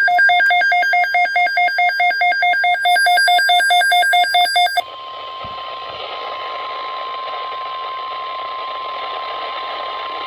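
Rapid electronic alarm beeping from a weather radio receiver, about five beeps a second, stopping suddenly about five seconds in. Then the NOAA Weather Radio warning alarm tone, one steady pitch over radio static, marks the start of a severe thunderstorm watch broadcast.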